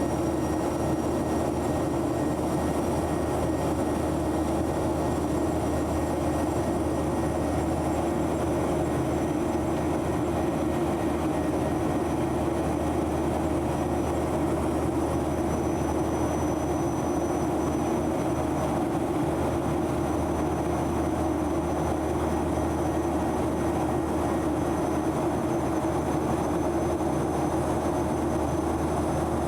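Steady engine and airflow noise inside the cabin of a Boeing 737-900 climbing after take-off, with a few faint, thin high tones above it.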